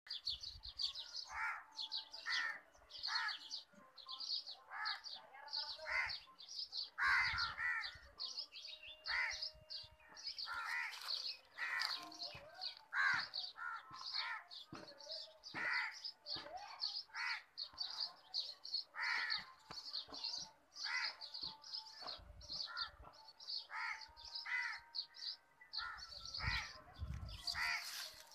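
Crows cawing over and over, about one call a second, with smaller birds chirping steadily in the background.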